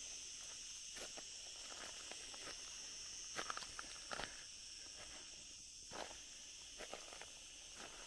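Footsteps crunching on dry leaf litter and parched soil, a handful of uneven steps, the loudest a little past the middle. Behind them a steady, high-pitched shrill of insects.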